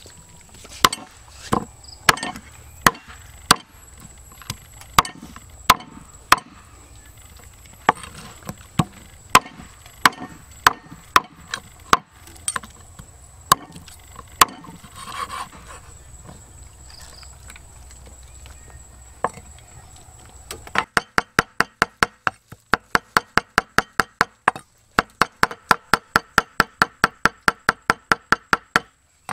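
Knife chopping on a wooden cutting board. For the first fifteen seconds or so it comes as spaced single chops, then after a pause it turns to fast, even chopping at about five strokes a second, broken once by a brief stop.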